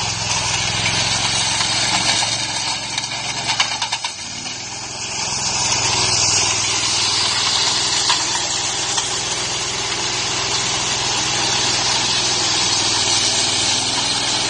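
Vanse VS780G ride-on power trowel running steadily as it is driven over wet concrete. Its engine dips briefly about four seconds in, then runs on slightly louder.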